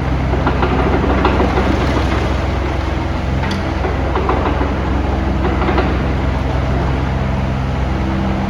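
Hyundai 60-9 midi excavator's diesel engine running steadily, with a few scattered metallic clanks.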